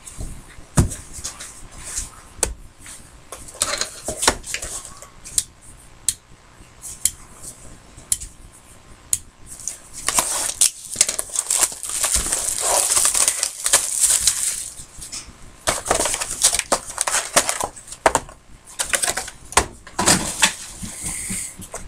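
Trading cards and their packaging handled on a desk: scattered clicks and taps as cards and a box are picked up and set down, with a few seconds of rustling about ten seconds in.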